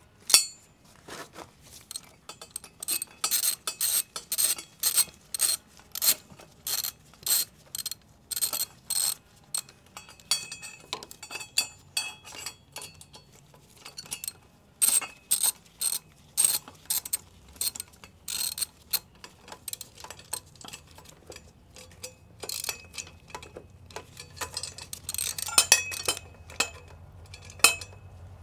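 Ratchet wrench clicking in repeated runs of quick strokes, with sharp metallic clinks of tools and metal parts in between.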